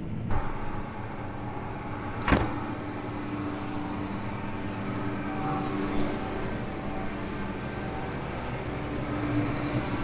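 John Deere T670i combine harvester running steadily while harvesting, its engine and threshing machinery giving a constant pitched hum. A single sharp knock comes a little after two seconds in.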